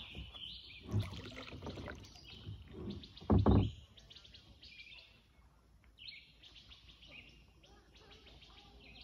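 Small birds chirping and trilling in the trees. There are two louder, brief low rumbles about a second in and about three and a half seconds in, the second being the loudest sound.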